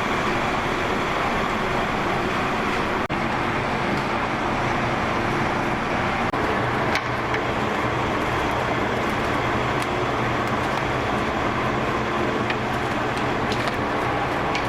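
Steady loud rushing noise with a low hum underneath and a few faint light clicks, broken by two very brief dropouts about three and six seconds in.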